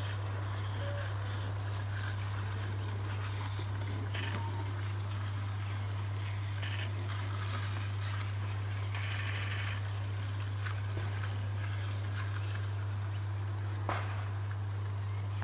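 G-scale model electric locomotive of the Rhaetian Railway type running along a garden railway track, with a steady low hum throughout and a few light clicks, the clearest about fourteen seconds in.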